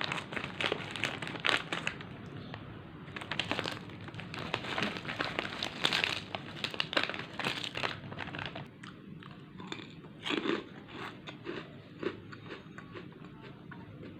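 Crisp snack chips being bitten and chewed close to the microphone: loud crunches come thick and fast for the first eight seconds or so, then thin out to scattered crunches.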